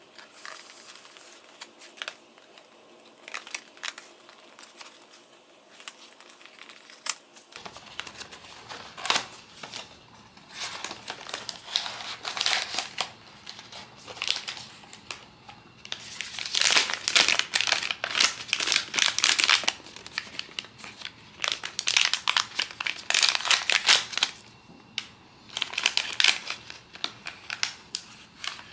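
Hands open a small cardboard blind box with scattered clicks and paper rustles. Then a black foil inner bag is crinkled and torn open in loud, repeated bursts of crinkling.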